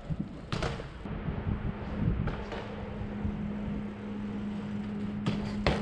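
Outdoor traffic noise with wind rumbling on the microphone. A steady low hum sets in about a second in, and a few short sharp knocks come near the start and near the end.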